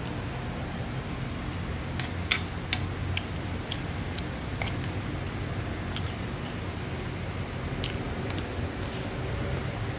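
Metal spoon stirring fried rice in a nonstick frying pan, with irregular sharp clicks and scrapes of the spoon against the pan, the loudest two close together a couple of seconds in. A steady low hum runs underneath.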